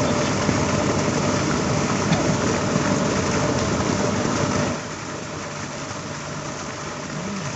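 A steady engine-like hum under a hiss of noise, dropping suddenly in level a little after halfway.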